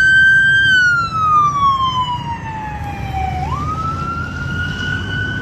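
Toy police car's electronic siren wailing: the pitch holds high, falls slowly for about three seconds, then sweeps quickly back up and holds.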